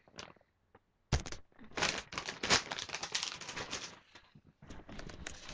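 Plastic bag of Living World Fresh 'n Comfy paper bedding crinkling and rustling as it is handled. A thump about a second in starts it, and it tails off into a few faint crackles near the end.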